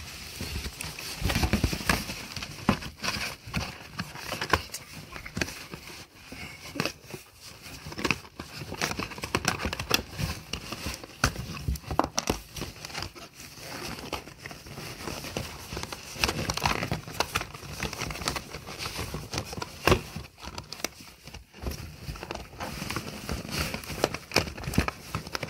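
Cardboard and clear plastic doll packaging crinkling and crackling as hands untwist wire twist ties and pull the dolls free of the box insert: irregular clicks and rustles.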